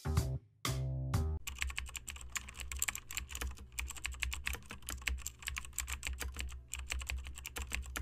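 Rapid computer-keyboard typing clicks, a sound effect over a low droning music bed, starting about a second and a half in after the last couple of music beats.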